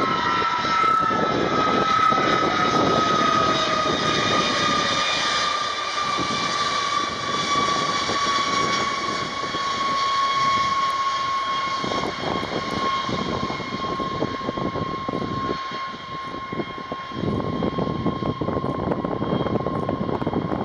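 Boeing B-52H's eight turbofan engines whining at low power during its landing rollout, over a rumble of jet noise. The high whine slides slowly down in pitch, and a second, lower whine drops quickly in the first few seconds.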